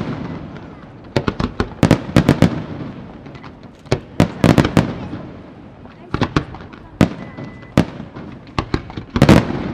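Aerial firework shells bursting in quick clusters of sharp bangs every couple of seconds, each cluster trailing off in a rolling echo, with the loudest cluster near the end.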